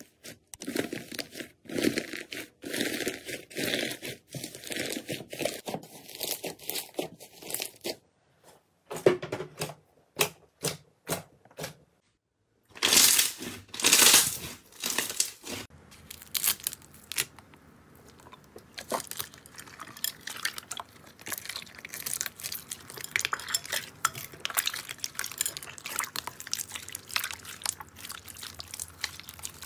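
Hands pressing and squeezing slime: first a dense crackling as a hand breaks through the crisp, hardened crust of a slime, then loud crackling pops about thirteen seconds in, followed by a long run of finer, quieter wet clicks and pops as soft slime is kneaded.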